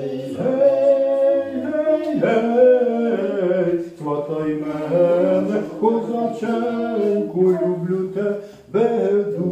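Voices singing a Ukrainian folk song unaccompanied, in long drawn-out notes that glide from one to the next, with a short breath between phrases near the end.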